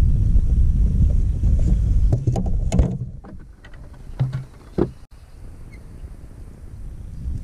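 Wind buffeting the microphone as a loud, uneven low rumble that eases off about three seconds in. A few sharp knocks and clicks follow as a largemouth bass is handled on a bass boat's deck.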